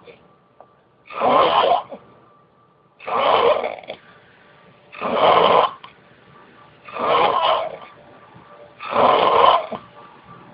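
A person snoring: five snores in an even rhythm, about one every two seconds.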